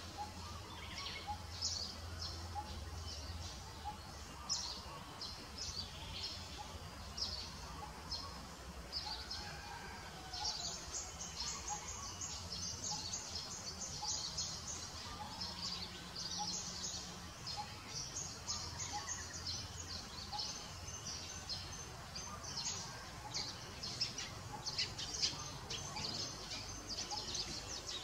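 Birds chirping in many short, high notes that come thickest in the second half, over a low steady background rumble.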